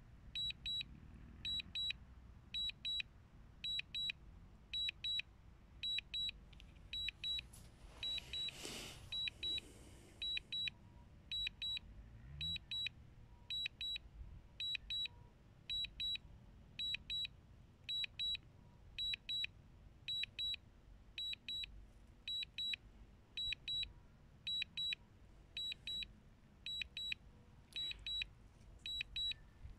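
DJI Mini 2 return-to-home alert: a short, high-pitched double beep repeating about every 0.7 seconds, the signal that automatic return-to-home is under way. A brief soft rush of noise comes about nine seconds in.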